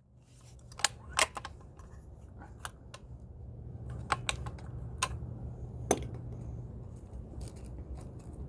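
Scattered sharp clicks and small metallic rattles of keys and gear being handled while searching for the air rifle's next magazine, over a low steady rumble of handling noise.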